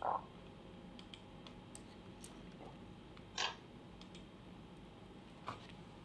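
Faint scattered clicks over a steady low hum, with three louder short taps: right at the start, a little past the middle (the loudest), and near the end.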